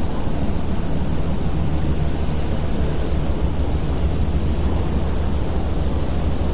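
Steady low rumble of a moored Star Ferry's engine running at the pier, under a wash of harbour wind.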